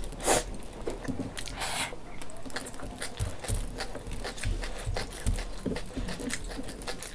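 A person eating noodles close to the microphone: irregular wet chewing and mouth clicks. The loudest is a sharp click just after the start, and there is a short breathy rush just under two seconds in.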